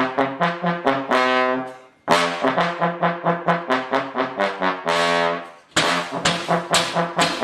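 Brass music, trombone-like: phrases of quick, short staccato notes, about five a second, each ending on a held note, with the sound cutting out briefly about two seconds in and again near the end.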